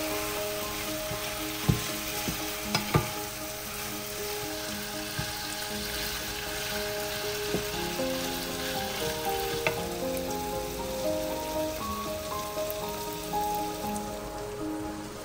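Food sizzling as it fries in hot oil in a pan, with a few sharp knocks against the pan, the loudest near the start. Soft background music plays underneath.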